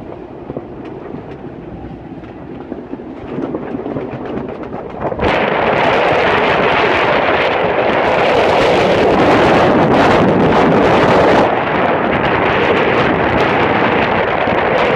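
Strong wind of around 45 knots blowing across the microphone on a sailing yacht: a steady rush that jumps suddenly much louder about five seconds in and stays loud.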